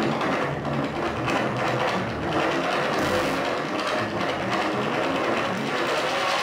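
Live electronic music from analogue and modular synthesizers: a dense, unbroken stream of short pitched tones over a noisy bed.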